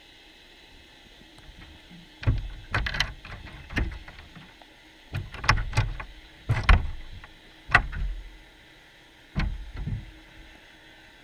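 Irregular knocks and thumps picked up by an underwater camera housing inside a wire cunner trap, as cunners bump against the camera and the trap mesh. About a dozen hits in loose clusters, over a faint steady underwater hiss.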